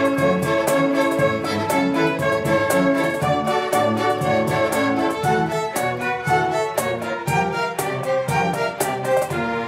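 School orchestra playing a lively piece, violins leading with cellos beneath, over a steady beat.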